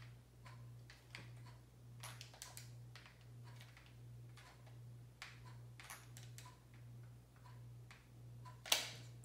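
Faint, irregular clicks of thumb-pressed buttons on a handheld game controller, about one or two a second, over a steady low electrical hum. A louder short rustle comes near the end.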